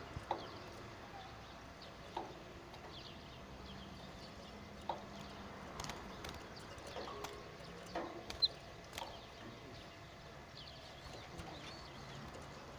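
Birds chirping now and then in short high calls, with a few sharp clicks or taps in between.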